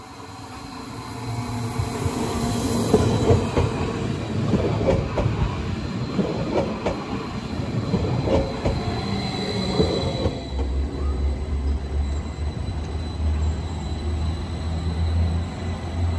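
Eurobahn Stadler FLIRT electric multiple unit coming into the station: it grows louder as it approaches, then clatters and squeals over the rails as it brakes. About ten seconds in, a low steady hum takes over as it rolls slowly past.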